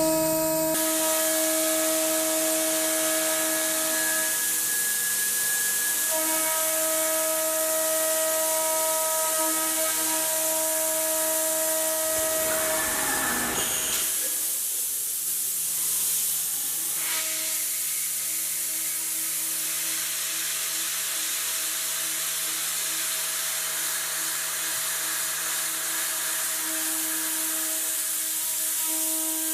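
CNC milling machine cutting, its spindle giving a steady whine over a loud hiss of coolant spray. About halfway through, the whine breaks off briefly and shifts in pitch before it settles again.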